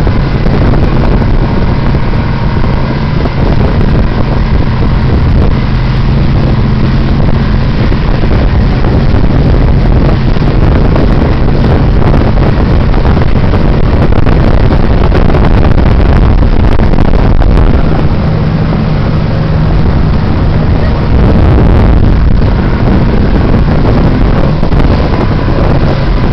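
Motorboat engine running steadily at towing speed, a low steady drone, with wind buffeting the microphone and the rush of the boat's wake.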